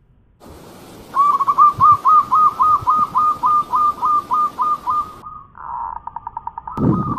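Zebra dove (perkutut) cooing: a long run of short, clipped notes, about four a second, then a quicker stuttering series. A short low thud near the end.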